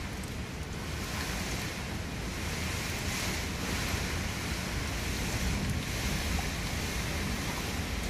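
Strong wind and heavy rain: a steady rushing noise that swells and eases with the gusts every couple of seconds, over a low rumble.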